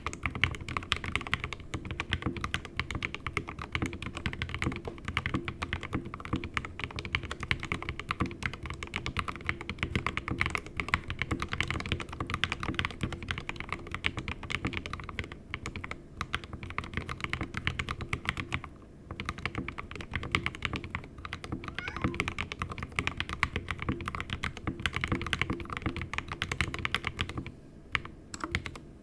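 Steady fast typing on an SK61 mechanical keyboard with lubed 62 g Gateron Optical Red linear switches, aluminium plate and stock keycaps, set on a bare desk without a deskmat. A continuous stream of keystrokes, with short pauses about 19 seconds in and again near the end.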